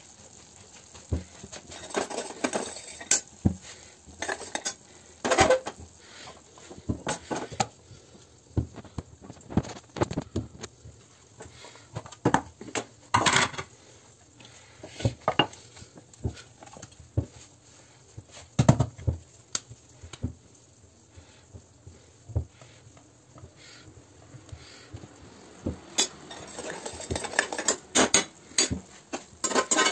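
Stainless steel utensils clinking and scraping: a steel spoon stirring and scraping semolina roasting in ghee in a steel pan, with scattered knocks of steel dishes being handled. The clatter is irregular and grows busier near the end.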